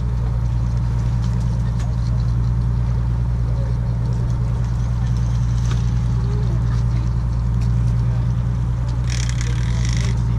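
Fishing boat's engine running steadily, a low even drone. A few faint clicks and a short hiss about nine seconds in.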